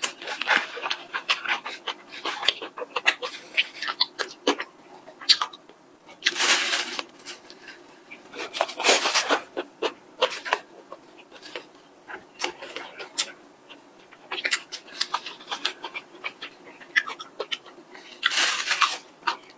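Close-miked eating sounds: a stream of wet chewing and lip-smacking clicks, broken by several breathy puffs about a second long blown out through pursed lips.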